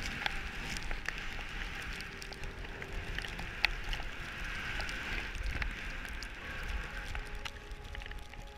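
Skis hissing steadily through snow on a downhill run, with scattered sharp clicks and one louder click about three and a half seconds in. A low rumble of wind on the microphone runs underneath.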